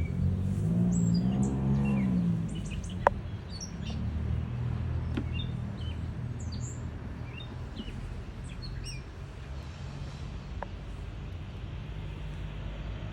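Small birds chirping on and off over a low steady hum. A stronger humming tone swells and falls in the first couple of seconds, and a single sharp click sounds about three seconds in.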